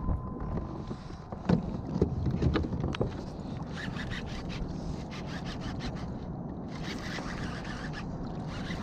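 A fishing reel being cranked in spells, a raspy winding sound from about four seconds in, over steady wind and water noise around a kayak. A few sharp knocks come in the first three seconds.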